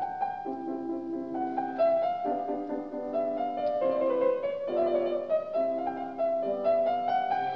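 Background instrumental music: a melody of notes changing every half second or so over held chords.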